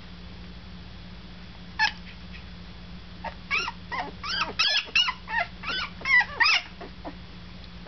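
Week-old German Shepherd puppy squeaking and whimpering: one short squeak about two seconds in, then a quick run of about a dozen high, rising-and-falling squeals over the next three seconds.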